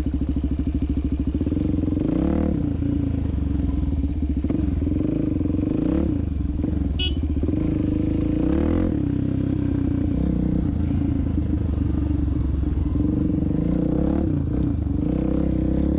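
A 2016 Suzuki DRZ400SM's single-cylinder four-stroke engine runs under way on a dirt trail. It rises and falls with the throttle several times.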